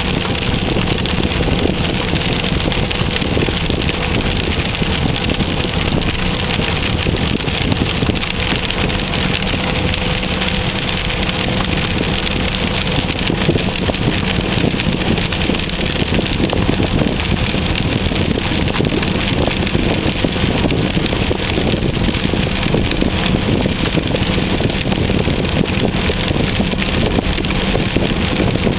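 Steady road and engine noise of a car driving at motorway speed, heard from inside the cabin, with a faint constant hum and rain on the car.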